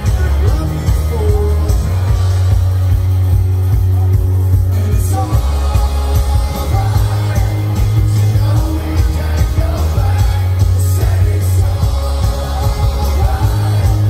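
Rock band playing live through a large PA: electric guitars, drums and a sung lead vocal, heard from the crowd with heavy bass.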